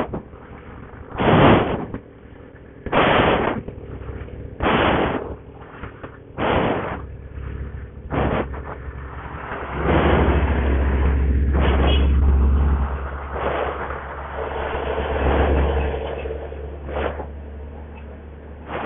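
A man panting out of breath, each heavy exhale hitting the microphone as a loud blast, about one every second and a half to two seconds. About ten seconds in the breaths give way to a low rumble that lasts several seconds.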